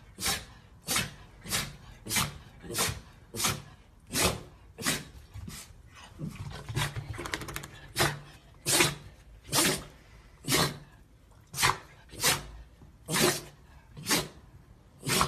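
Small dog barking over and over, one short sharp bark roughly every two-thirds of a second, with a brief pause about midway.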